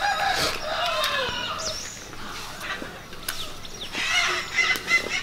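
Village chickens clucking and a rooster calling, with small birds chirping. A match is struck and flares alight about four seconds in.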